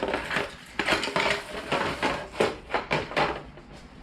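Irregular clicks and knocks of hard parts being worked into place, as a plastic tail piece is slid and pushed home under a sport bike's subframe.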